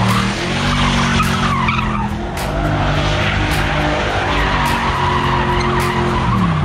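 Chevrolet Vega's engine held at high revs during a burnout, with the rear tires screeching as they spin and slide on asphalt. The revs drop near the end.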